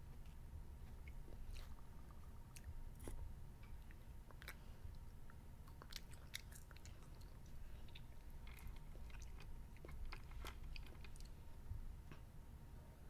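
A child chewing candy, with scattered small crunches and mouth clicks at irregular intervals.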